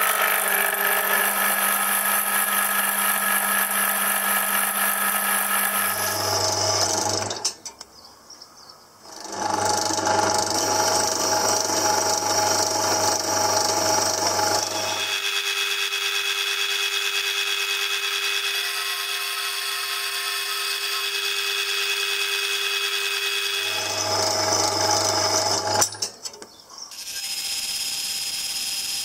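Horizontal metal-cutting bandsaw running and cutting through mild steel box-section tube: steady motor hum and blade whine whose pitch changes from one cut to the next. The level drops briefly twice, about 8 and 26 seconds in.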